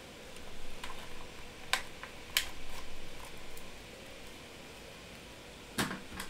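Soft rustling handling noise with two sharp clicks about two-thirds of a second apart, and a fainter click before them.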